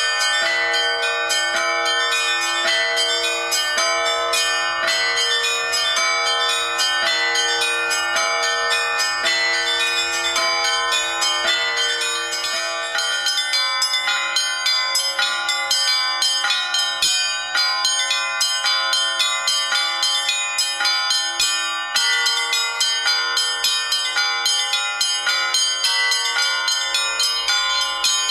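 Bells ringing in a quick, even run of strikes, several a second, their tones ringing on and overlapping.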